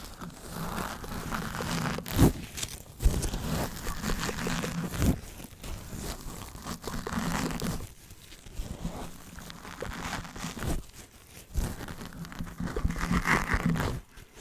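ASMR dry mouth sounds layered over scratching and brushing right on the microphone: close crackling and rustling in irregular bursts, with sharp loud snaps about two and three seconds in.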